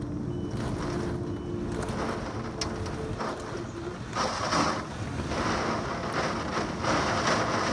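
Thunderstorm downpour and wind rushing steadily, swelling louder in three gusts in the second half.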